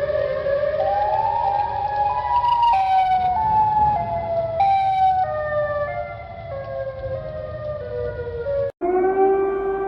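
Synthetic emergency alert siren: a pitched tone rises over about two seconds, then falls back in a series of short downward steps. It cuts off abruptly near the end, and a different steady alert tone starts.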